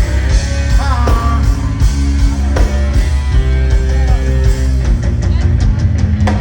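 Loud live dancehall music played over a festival sound system, with a heavy, continuous bass line and sustained held notes.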